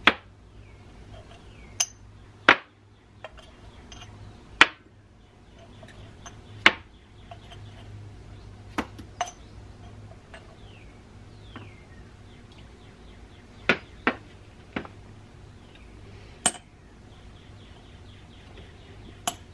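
Metal tweezers clinking against a small glass jar: about a dozen sharp clinks at irregular intervals, over a steady low hum.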